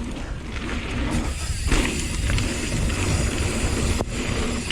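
Hardtail mountain bike riding down a dirt trail: wind rumbling on the microphone over the noise of the tyres rolling on the dirt.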